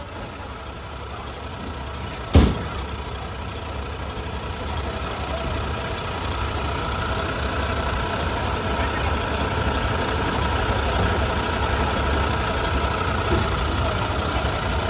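An engine running steadily and growing slowly louder, with one sharp knock about two and a half seconds in.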